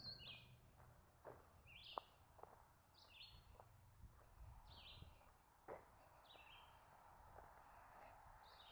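A songbird calling over and over, a short high note sliding down in pitch about every one to two seconds, heard faintly.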